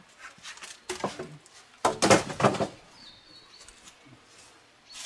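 Footsteps crunching and rustling in dry fallen leaves as a person walks a few steps and crouches down, loudest about one second in and again for about half a second around two seconds in.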